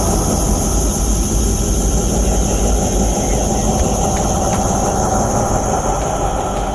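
Off-road 4x4 driving on a dirt track, heard from inside the cabin: a steady low rumble of engine and tyres, with a few faint clicks from the ride in the middle.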